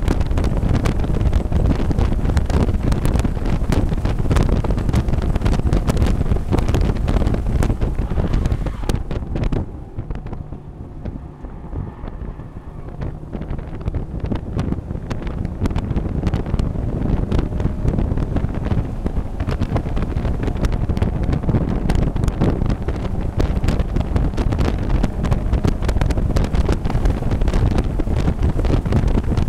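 Mazda MX-5 race car's four-cylinder engine running hard, heard from inside the open cockpit with heavy wind buffeting on the microphone. About ten seconds in the sound drops sharply for about four seconds, then builds back up.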